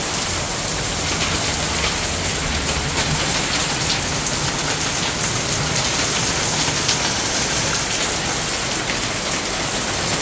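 Heavy rain falling steadily, a dense patter of drops striking hard surfaces.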